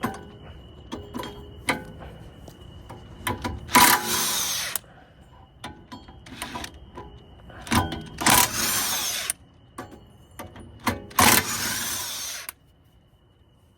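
Cordless impact wrench running in three short bursts of about a second each, loosening bolts, with light metal clicks and knocks between the bursts.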